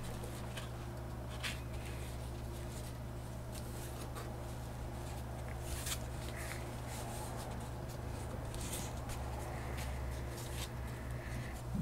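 Faint rustling and scattered light clicks of a wrapped pack of art cards being handled and unwrapped, over a steady low hum.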